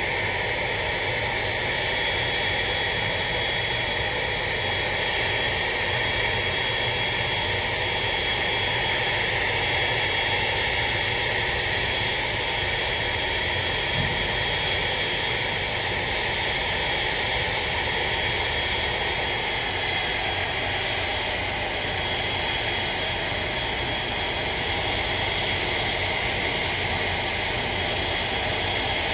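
A parked Boeing 737-800's auxiliary power unit running: a steady jet whine and rush with a constant high tone that holds unchanged throughout.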